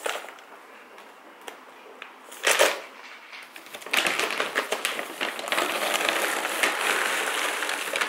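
Dry dog kibble poured from a large bag into a clear plastic storage canister: a dense, continuous rattle of many small hard pieces striking plastic and each other, starting about four seconds in. A short rustle comes a couple of seconds before the pour.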